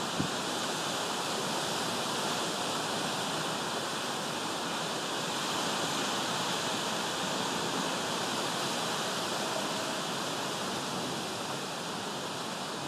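Steady rain falling, a continuous even hiss, with one faint click just after the start.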